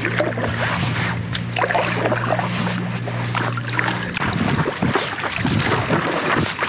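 Paddle strokes and water splashing and slopping against a paddleboard close to the microphone, with a steady low drone that stops about four seconds in.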